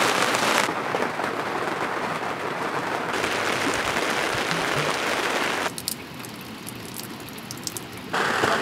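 Steady rain falling on the water and on a sailboat, heard in several takes that change abruptly. In a quieter stretch about six seconds in, separate drops can be heard.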